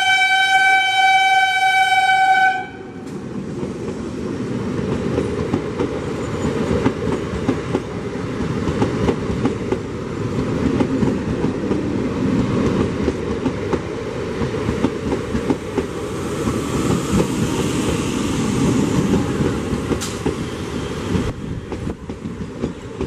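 EMU local train's horn blowing one steady high note, cut off about two and a half seconds in. Then an EMU local train running past with a heavy rumble and the clatter of wheels over the rails.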